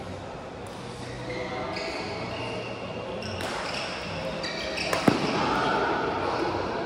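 Badminton racket striking a shuttlecock once, a sharp crack about five seconds in, over the steady noise of a sports hall with voices in the background.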